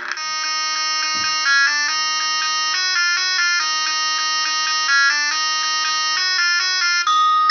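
An electronic, buzzer-like synthesizer tone playing a melody, its notes stepping up and down every quarter to half second without gaps.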